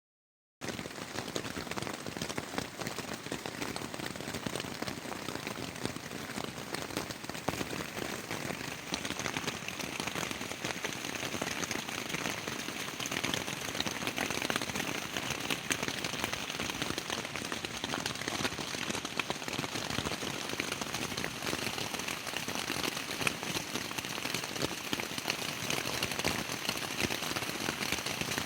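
Steady rain pattering on a tent's fabric, heard from inside the tent: a dense, even patter of drops that begins about half a second in.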